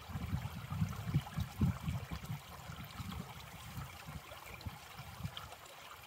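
Shallow icy creek trickling and gurgling over a small drop among ice and stones. The flow is steady, with irregular low gurgles rising and falling several times a second.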